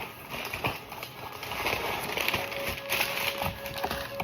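A cardboard box and its packaging being opened and handled: crinkling and rustling with small clicks and knocks.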